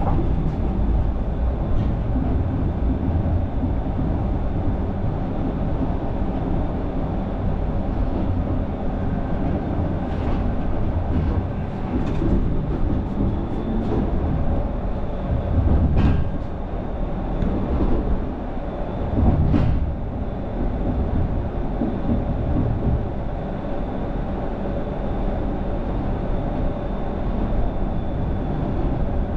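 Low-floor light-rail tram running along the track, heard from inside the rear cab: a steady low rumble of wheels on rail with a faint high steady whine. Past the middle come two louder knocks a few seconds apart.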